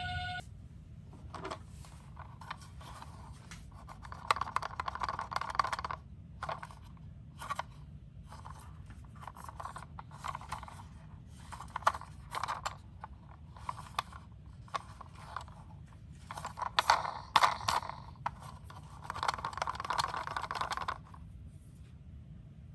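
Die-cast Tomica toy cars rattling and scraping against hard plastic in a series of bursts of a second or two, with sharp clicks between them.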